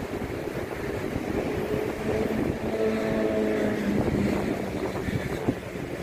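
Wind buffeting the microphone over the rush of rough sea surf breaking on the breakwater, with road traffic; a passing vehicle's steady engine hum stands out for a second or two in the middle.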